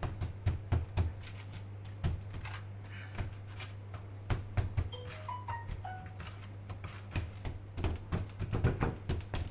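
Irregular soft knocks and taps of hands handling and pressing dough on a work board, over a steady low hum. A short run of falling tones sounds about five seconds in.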